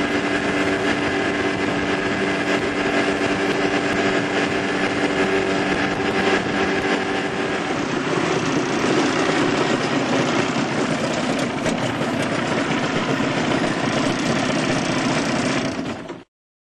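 Small boat's motor running steadily underway, with rushing water and wind noise growing rougher about halfway through. The sound cuts off suddenly near the end.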